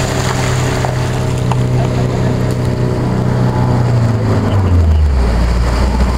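Toyota Hilux pickup's engine running steadily as it wades through water, with water rushing and splashing around the truck. The engine note drops to a lower pitch about four and a half seconds in.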